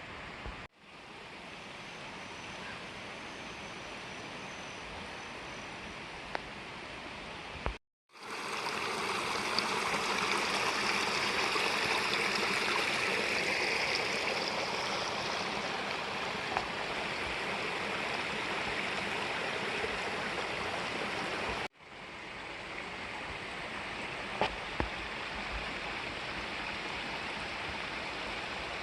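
Flowing river water rushing steadily, louder in the middle stretch, with brief cut-outs about 1, 8 and 22 seconds in where the recording breaks.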